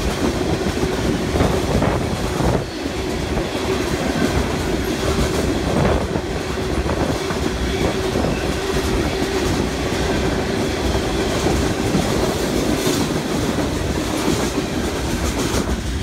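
Freight train of open-top cars rolling steadily past, wheels clattering over the rails with a clickety-clack, until the last car clears near the end.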